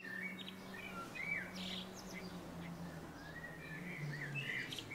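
Birds chirping and calling: a string of short whistled notes that rise and fall in pitch, over a faint low steady hum.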